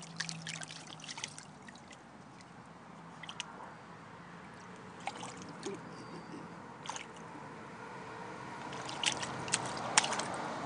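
Shallow water in an inflatable paddling pool splashing and sloshing in short, scattered bursts as a dog moves about in it; the sharpest splashes come near the end.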